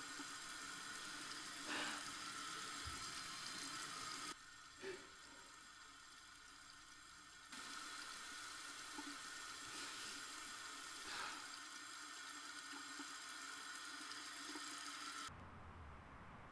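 Faint steady hiss with a few soft knocks spread through it. Near the end the hiss drops and a low hum comes in.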